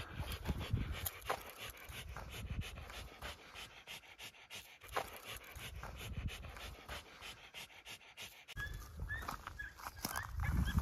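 A Podenco Orito dog panting rapidly, about four breaths a second, with a caught rabbit clamped in its mouth. Near the end the panting gives way to a low rumble and a few short high chirps.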